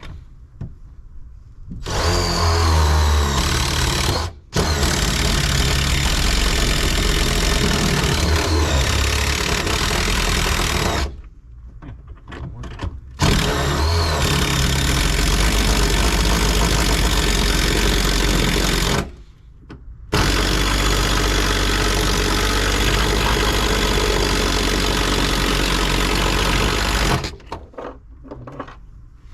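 Electric drill running under load in four long bursts, each starting with a short rising whine, boring into the car's sheet metal hard enough to make the metal smoke.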